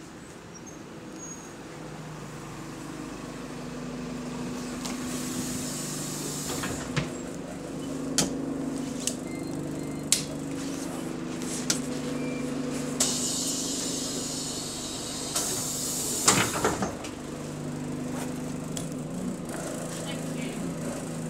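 Diesel engine of a double-decker bus idling, heard from inside the bus, with scattered knocks and clicks. Two loud bursts of compressed-air hiss come past the middle, from the air brakes or the pneumatic doors.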